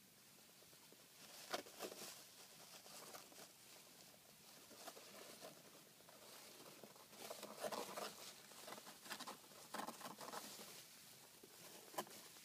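Hedgehog burrowing through loose shavings bedding: soft, irregular rustling and crackling of the shavings. The rustling comes in louder flurries from about seven to ten seconds in, with a sharp crackle near the end.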